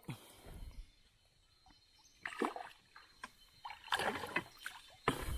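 A hooked machaca thrashing at the surface beside a canoe: a few irregular splashes of water, the loudest near the end.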